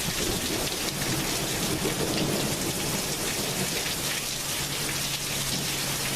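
Heavy rain falling steadily in a thunderstorm, with a faint low steady hum underneath that gets clearer in the second half.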